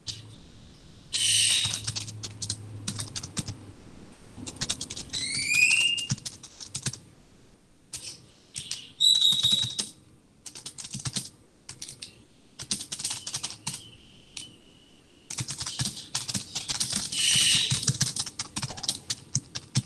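Typing on a computer keyboard in irregular bursts of clicks. A few short, high, rising whistled chirps and brief steady beeps come through twice in between.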